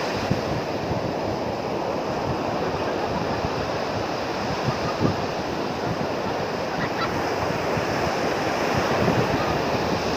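Strong surf breaking and washing up a sandy beach in a steady rush, with wind buffeting the microphone.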